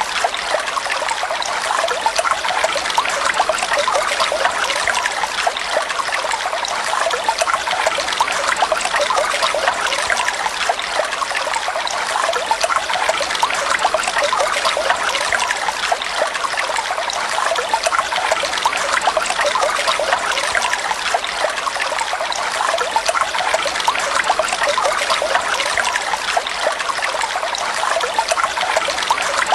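Flowing water trickling and splashing steadily, a continuous babbling with no pauses.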